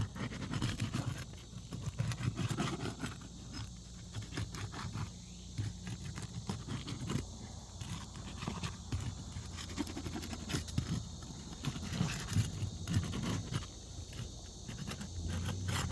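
A roof snake pry bar scraping and prying under asphalt shingles to break their seal strips, making irregular knocks and scrapes.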